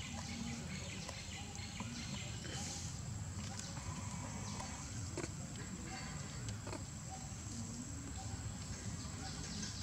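Outdoor ambience around a troop of long-tailed macaques: scattered light crackles and a few short, faint calls over a steady low rumble.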